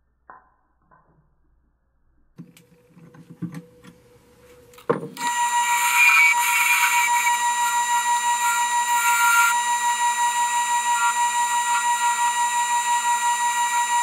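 A few clicks and knocks of a collet chuck being tightened on a small wood lathe, then the lathe switched on about five seconds in and running with a steady high whine while a small turning tool cuts the spinning wood, a hissing cut that is loudest for a few seconds after the start.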